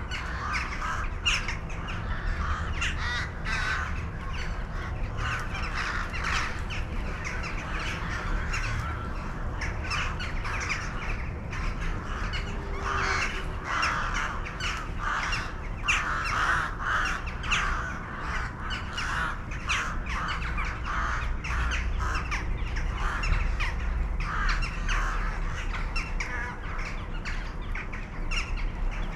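Many birds calling continuously, with short calls overlapping one another, over a steady low rumble.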